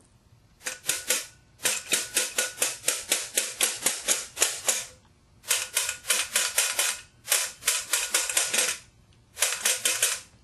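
Ratcheting hand tool clicking in rapid runs of about six clicks a second, in five bursts with short pauses between them.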